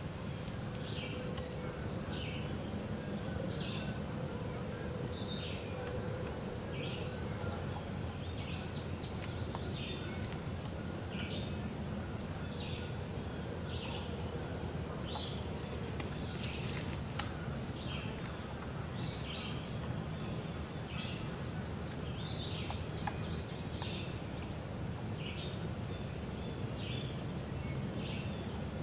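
Birdsong in summer woods: short chirping notes repeated about once a second, with occasional higher peeps, over a steady high-pitched insect drone and a low background hiss.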